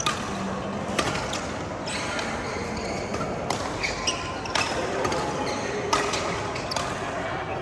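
Badminton rally in a hall: a string of sharp racket-on-shuttlecock hits, roughly a second or more apart, with short high shoe squeaks on the court floor between them.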